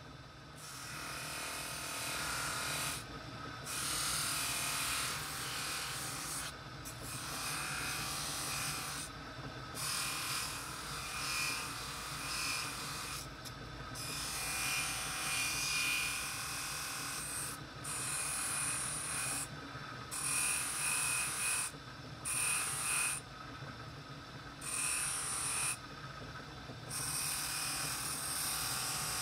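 Electric cloth buffing wheel spinning steadily with a hissing rub as brass lamp parts are pressed against it. The rubbing breaks off briefly every two to three seconds when the part is lifted away, while the motor hum runs on.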